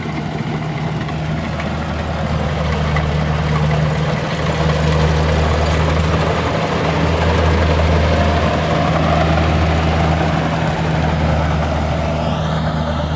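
Kubota combine harvester's diesel engine running steadily, a little louder in the middle. Near the end a wavering high tone starts over it.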